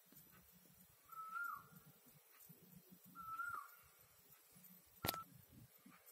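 Faint short whistle-like call, a steady note that drops at the end, repeated about every two seconds, with a single sharp click about five seconds in.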